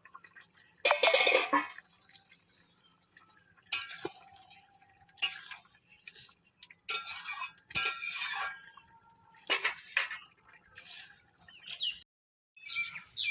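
A utensil scraping and clinking against a metal cooking pot in short, irregular bursts as fish is stirred into a simmering curry. The loudest burst comes about a second in.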